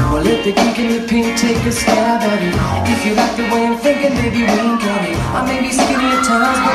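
Loud recorded song with singing and a steady beat, played for the dancers.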